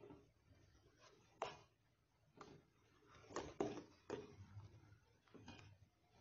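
Steel spoon scraping and clinking against a stainless steel pan while stirring thick simmering milk: a few faint scrapes and knocks about a second apart, the loudest a little past the middle.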